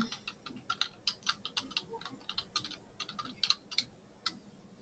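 Typing on a computer keyboard: a rapid, irregular run of key clicks that stops about four seconds in.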